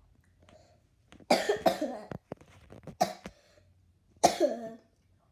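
Coughing: four loud coughs, two close together about a second in, then one at about three seconds and a last one past four seconds.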